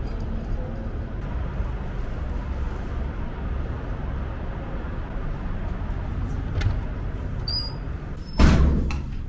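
Steady low rumble of city street traffic, with a sudden loud burst of noise a little over eight seconds in that fades over about a second.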